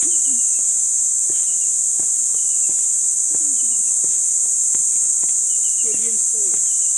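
A steady, high-pitched drone of insects in the trees, with short chirps repeating now and then and light footsteps on a dry, leaf-covered trail.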